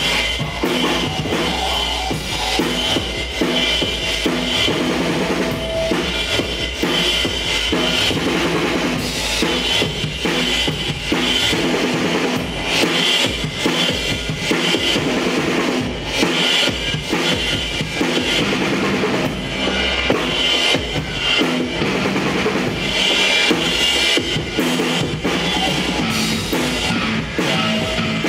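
Loud live band music with a drum kit to the fore, its bass drum and snare hits running throughout.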